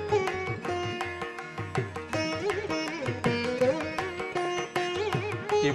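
Instrumental Indian classical background music: a plucked-string melody with sliding, bending notes over a steady accompaniment.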